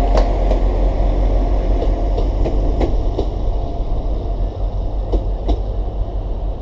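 Diesel multiple unit pulling away, its underfloor engines running under power with a heavy low rumble, and wheels clicking irregularly over rail joints and pointwork. The sound eases a little as the train draws off.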